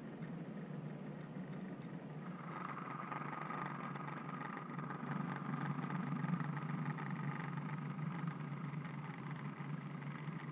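OO gauge model train, a class 08 shunter with wagons, running along the track: a steady low hum, joined about two seconds in by a higher whine and a fine rattling tick of wheels on the rails.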